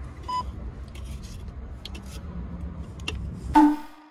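A hand tool scraping and picking at delaminated, moisture-damaged plywood on a caravan's underfloor, in short scratchy strokes over a steady low rumble. A short beep comes about a third of a second in, and a brief loud tone comes near the end, just before the sound cuts off.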